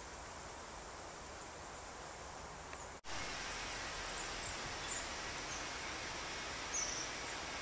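Quiet outdoor ambience: a steady hiss with a few faint, short bird chirps, mostly in the second half. The sound drops out for an instant about three seconds in, at a cut, then carries on a little louder.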